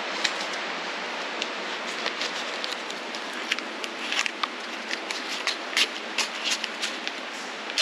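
Scattered light clicks and taps from hand work over a steady background hiss.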